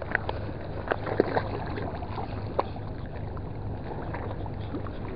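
A steady low hum under a constant wash of outdoor noise, with a few short sharp clicks and taps in the first half.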